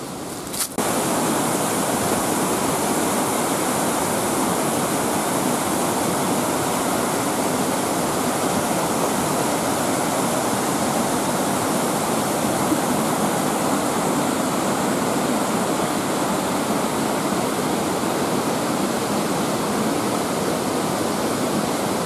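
Mountain river water rushing over boulders and small cascades, a steady loud rush that comes in abruptly a little under a second in.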